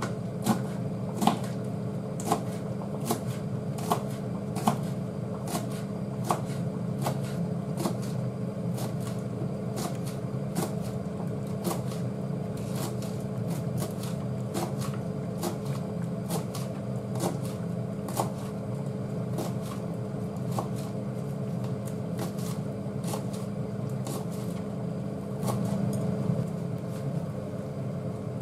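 Kitchen knife chopping green onion on a plastic cutting board, in regular strokes about one to two a second. A steady low hum runs underneath.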